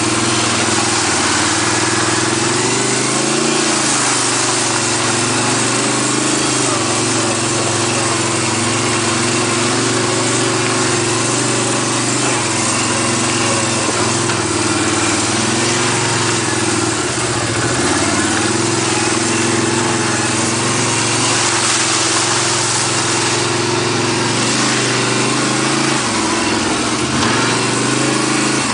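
ATV engine running, its pitch drifting up and down a little with the throttle, over a steady hiss.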